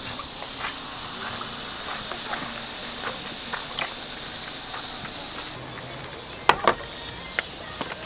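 Steady high-pitched insect chorus. A few sharp clicks stand out near the end.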